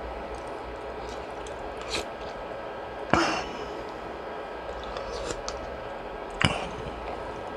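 Eating sounds from a bowl of fish cake soup over a steady background hum: a few sharp clicks or knocks, the loudest about three seconds in and another about six and a half seconds in.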